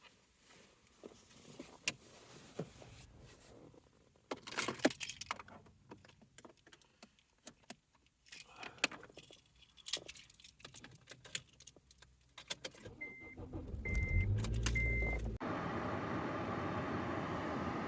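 Keys jangling with scattered clicks and rattles of handling, then three short, evenly spaced electronic beeps over a low rumble about thirteen seconds in. The sound then switches abruptly to a steady hum.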